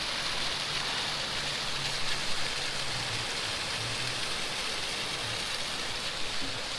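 Steady rush of water from a mostly frozen creek waterfall, the flow running on under the ice.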